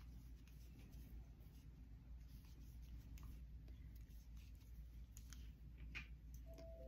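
Near silence: the faint rustle of a crochet hook drawing cotton yarn through stitches, with a few light ticks, over a low steady hum.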